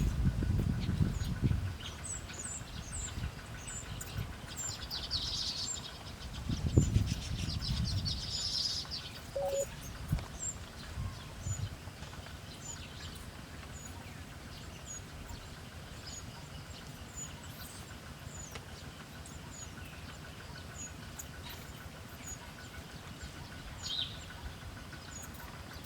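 Small bird chirping, short high notes repeating about once a second, over low rumbling noise that is strongest in the first two seconds and about seven seconds in.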